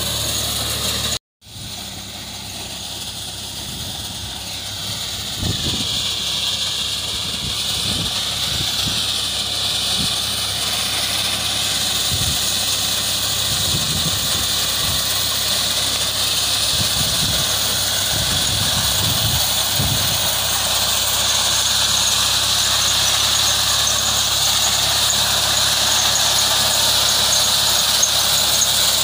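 Fiat 480 tractor's three-cylinder diesel engine working under load while its mounted reaper cuts through standing maize stalks, a steady mechanical din with a high-pitched whir over it and scattered low thumps. The sound drops out for a moment about a second in, then grows steadily louder toward the end.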